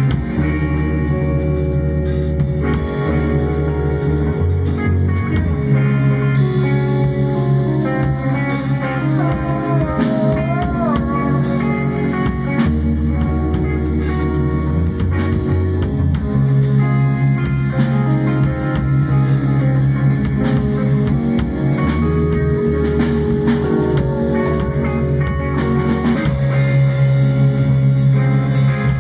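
Improvised guitar-led music jammed over a sustained single-tone drone, the low note held steady beneath, with a bent, wavering note about ten seconds in.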